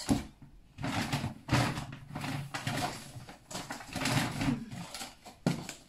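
Shopping bag rustling in irregular bursts as groceries are rummaged out of it.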